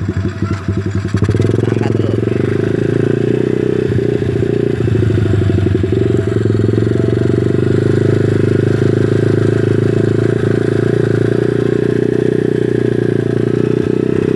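Motorcycle engine running while riding along, uneven for the first second or so, then running steadily.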